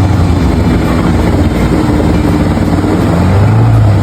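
A boat's outboard motor running at a steady speed, a loud low hum with rushing water and wind noise above it.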